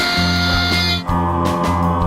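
Rock music with guitar and a steady beat; a bright high hiss under it cuts off sharply about a second in.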